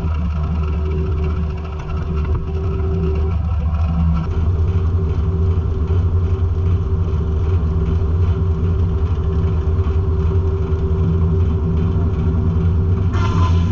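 Circle sawmill running: a steady low engine drone with a constant hum from the spinning saw, getting louder about four seconds in. Near the end a higher ringing tone joins.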